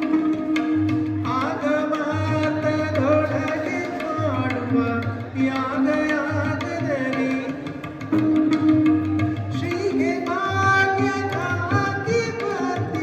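Carnatic-style music in raga Mohana: a melody sliding and curving between notes over hand-drum strokes and held lower notes.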